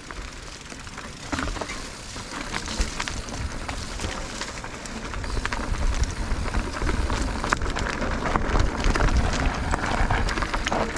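Mountain bike rolling down a rocky trail: tyres crunching over loose rock and gravel, with many small rattling clicks from the bike and a low rumble that grows louder about halfway through.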